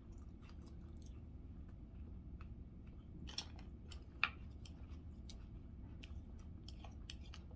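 Quiet eating: a person chewing a chicken salad, with faint scattered clicks and a couple of slightly louder ones around the middle, over a low steady hum.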